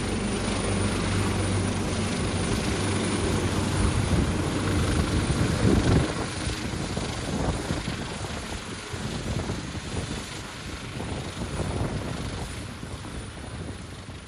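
Helicopter flying, its rotor beating steadily. It is loudest about six seconds in, then grows gradually fainter.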